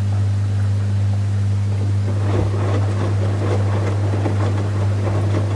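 Washing machine running: a steady low motor hum, with rough, irregular water-and-laundry sloshing in the drum coming in about two seconds in.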